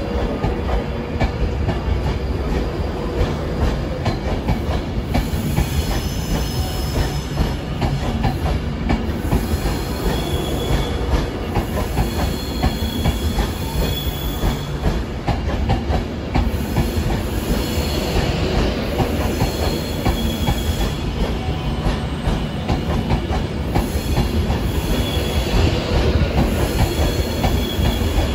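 Class 390 Pendolino electric train running slowly along the platform: a steady low rumble with wheels clicking over the rails, and short high-pitched wheel squeals coming and going several times.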